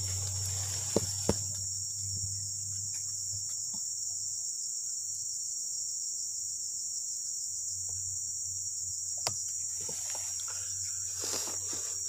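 Steady high-pitched buzzing chorus of tropical forest insects, with a few sharp clicks: two about a second in and one near nine seconds.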